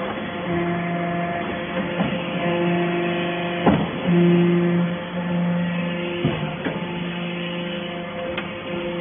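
Hydraulic metal-chip baler running: a steady machine hum with a deeper tone that cuts in and out about every second, and a few sharp knocks, one of the louder ones about halfway through.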